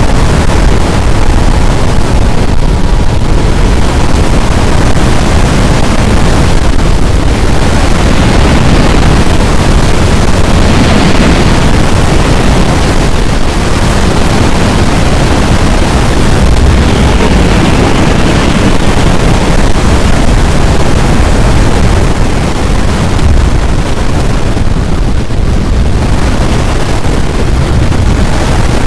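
Strong wind roaring across the microphone, loud and steady throughout.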